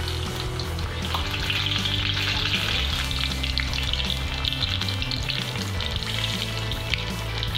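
Besan-battered gourd-leaf parcel stuffed with paneer deep-frying in hot oil in an aluminium kadai: a steady crackling sizzle that grows louder about a second in.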